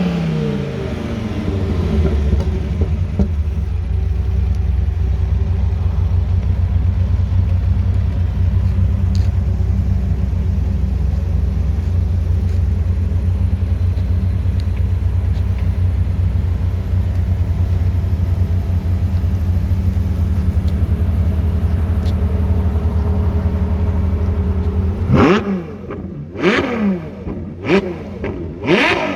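A stock sports car engine settles from a rev into a steady, deep idle, then near the end is blipped sharply several times in quick succession, each rev rising and dropping straight back.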